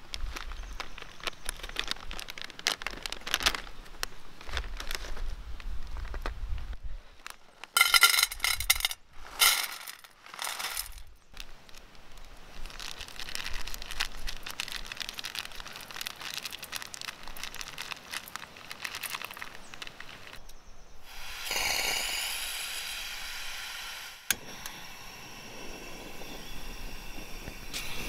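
Close-up camp-cooking sounds over a portable butane stove: clicks and taps against a small pan, loud bursts of crackling plastic packet about eight and ten seconds in, and the stove and pan hissing steadily between them.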